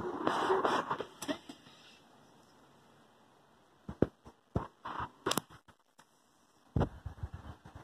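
Handling noise from the hand-held recording device: a rustle in the first second or so, then scattered soft clicks and knocks, with a quicker run of them near the end.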